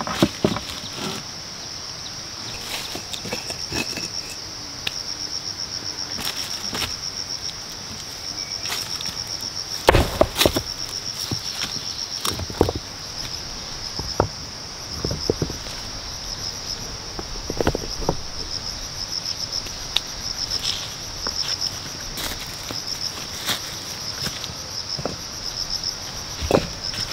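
A steady, high, pulsing insect trill. Scattered knocks and rustles of bark, stones and dry leaves being handled come over it, the loudest knock about ten seconds in.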